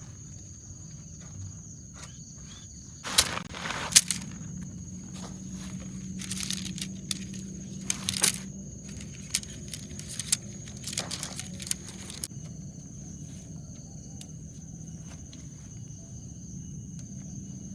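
Insects keep up a steady high-pitched drone. Between about three and twelve seconds in come several loud bursts of rustling and sharp clicks, like footsteps and gear being handled, the loudest near the start of that stretch and again about eight seconds in.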